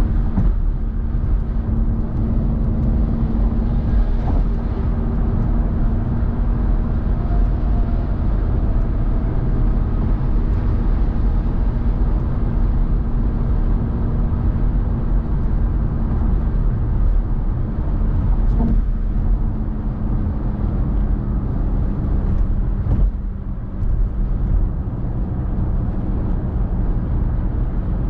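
Car driving at motorway speed: a steady rush of tyre and road noise with a low, even hum running under it. The level dips briefly about 23 seconds in.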